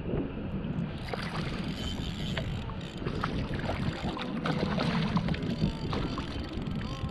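A hooked fish thrashing and splashing at the water's surface beside a fishing kayak, in a run of short sharp splashes, with wind buffeting the microphone.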